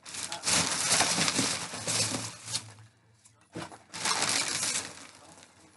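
Foam packing peanuts rustling and squeaking with crinkling plastic as hands dig through a packed shipping box, in two bursts with a brief pause between.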